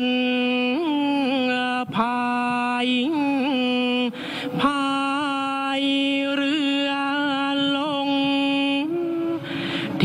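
Kap he ruea, the Thai royal barge song, sung by a single voice in long drawn-out held notes with wavering ornaments, with short breaks between phrases.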